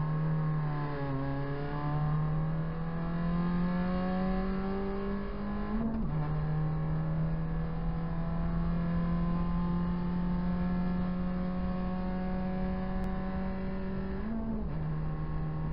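Proton Saga BLM race car's four-cylinder engine heard from inside the cabin, pulling hard under acceleration. The revs dip briefly near the start, then climb slowly, with upshifts about six seconds in and again near the end.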